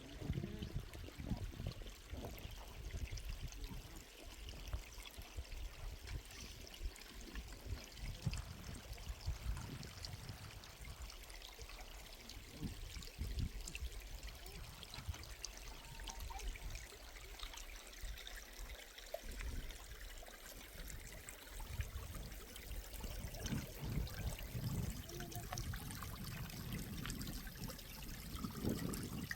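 Water trickling steadily, with irregular low rumbles throughout.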